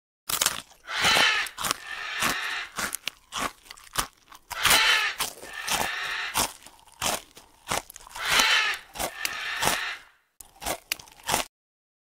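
An animal crunching and chewing food: a dense run of crackling clicks, with three longer rasping bursts about three and a half seconds apart.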